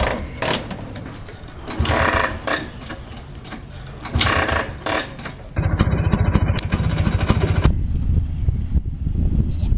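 Vintage Vespa scooter's single-cylinder two-stroke engine. A few short bursts of noise come in the first half, then from about halfway through the engine runs steadily with a rapid low putter.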